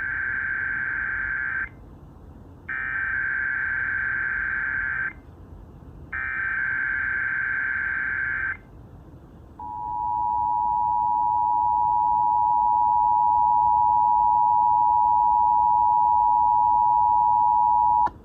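Emergency Alert System test signal: three bursts of digital SAME header data, each about two and a half seconds long with about a second between them, followed by the EAS two-tone attention signal held steadily for about eight seconds and cutting off sharply near the end.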